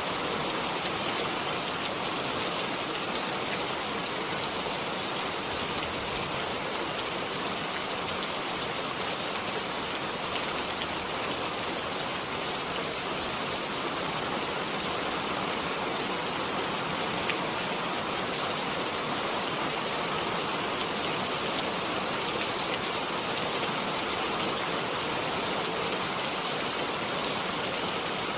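Steady rain falling, an even hiss with small drops ticking on a surface. One slightly sharper drop lands near the end.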